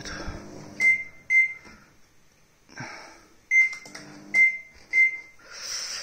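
Samsung CE1031R microwave oven's control panel beeping as its keys are pressed: five short, high beeps, the first two about half a second apart, after the oven's low running hum stops in the first second. The touch panel is registering presses again after its ribbon cable was cleaned and reseated to cure the SE error.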